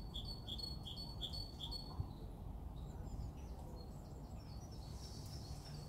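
A small bird singing a quick two-note phrase repeated about six times over the first two seconds, with a few more chirps near the end, over a steady low outdoor rumble.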